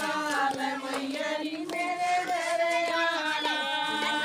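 A group of women singing a Haryanvi devotional bhajan together in long, held phrases, with hand claps keeping time.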